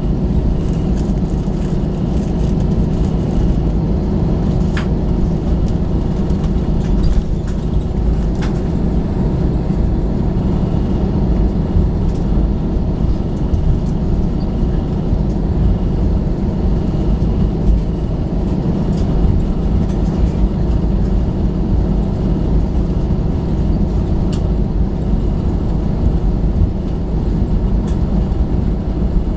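Steady low rumble of an Airbus A321's engines and airframe heard inside the passenger cabin, with a faint steady hum, even in level throughout, and a few faint clicks.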